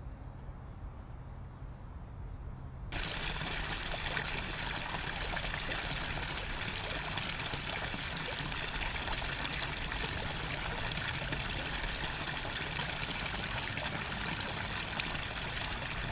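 Water pouring from a stone spout and splashing into a pool below, a steady splash that starts abruptly about three seconds in and cuts off suddenly at the end. Before it there is only a low background rumble.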